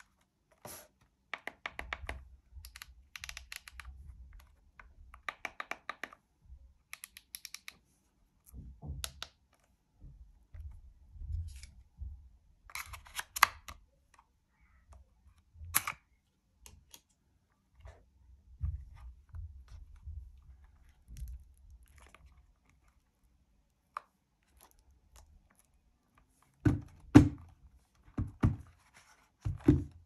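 Handling noise from a small plastic Yoto Player in a silicone jacket being turned over in the hands: scattered clicks, rubbing and scraping with spells of rapid fine clicking, then several heavier thuds near the end.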